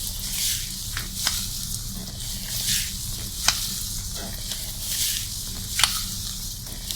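Fingers scrubbing shampoo lather through hair: a wet, crackling fizz of foam that swells and fades with the strokes, with several sharp little crackles. A low steady hum lies underneath.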